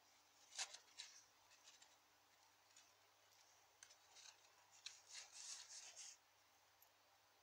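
Faint handling noise: light clicks and rustling as fingers move a pair of silver drop earrings on their card display and lift one off. There is a short flurry about half a second in and a longer one from about four to six seconds.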